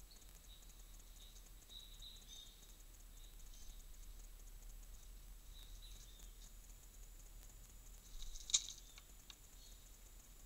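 Faint forest ambience with scattered high ticks and short chirping calls, and one sharp, louder high note about eight and a half seconds in.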